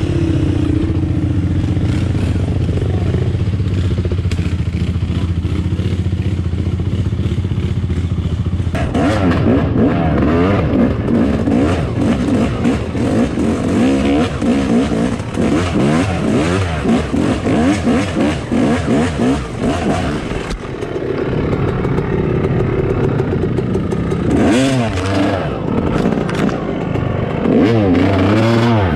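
Yamaha YZ250 two-stroke dirt bike engine running at a steady speed for several seconds, then revving up and down hard as the bike climbs a steep rocky hill. After a short dip it gives two more sharp rev bursts near the end.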